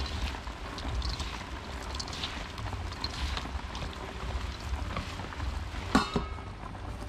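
Gloved hands tossing a wet salad of shredded banana stem and carrot in a large stainless steel basin: wet, crisp rustling in irregular strokes about once a second, over a low rumble. A sharp knock about six seconds in.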